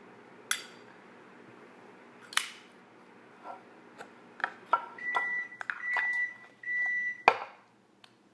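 Zippo lighter, fuelled with gun oil, being worked to light: sharp metallic clicks and flint-wheel strikes, three short steady high-pitched tones about two-thirds of the way in, and a loud clack near the end.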